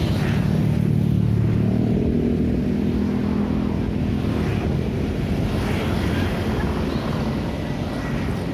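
Street traffic: motor vehicles running past. A low engine hum from a nearby vehicle is loudest in the first few seconds and fades out about halfway through.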